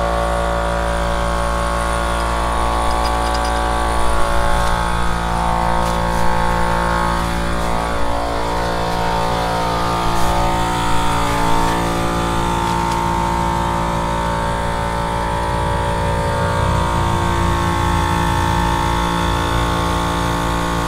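Air compressor running steadily, a drone made of several steady tones, its pitch wavering for a few seconds around the middle.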